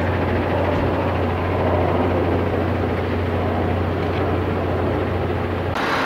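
A steady low engine hum under a rushing noise, cutting off suddenly near the end.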